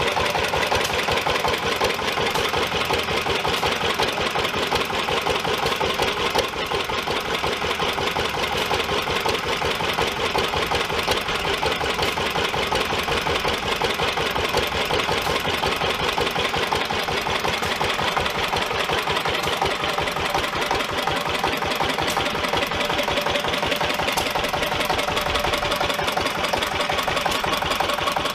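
Antique hit-and-miss stationary gas engines running, a steady fast mechanical clatter that carries on without a break.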